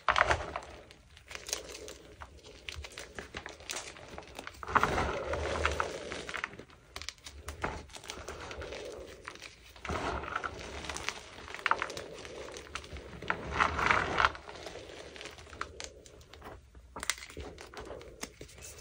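Hands crushing and rubbing chunks of gym chalk mixed with fabric softener, a dense crackly crunching and crumbling. There are louder squeezes about five, ten and fourteen seconds in, and softer powdery rubbing between them.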